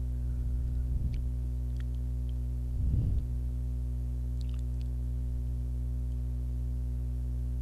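Steady low electrical hum with overtones, with a few faint clicks and a brief low bump about three seconds in.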